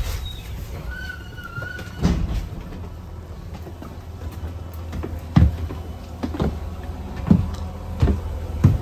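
A double-decker bus's engine runs with a steady low rumble while the bus stands at a stop, with a brief faint squeal about a second in. From about five seconds in, a run of knocks about a second apart comes from footsteps going down the bus's stairs.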